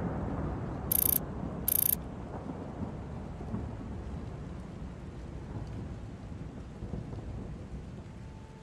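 Low rumbling thunder with a rain-like hiss, fading slowly. Two short, sharp high hisses, about a second and two seconds in, are the loudest moments.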